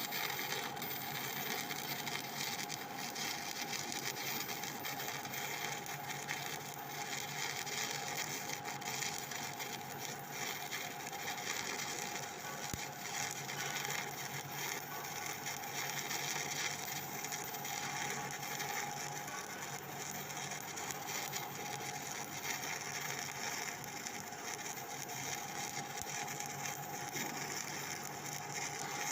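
Steady, dense crackle of a 7018 stick-electrode arc burning during a vertical-up weld.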